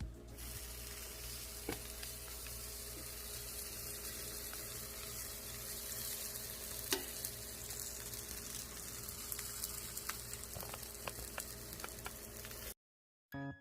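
Takoyaki frying in a takoyaki pan: a steady sizzle with a few light clicks. It cuts off suddenly near the end.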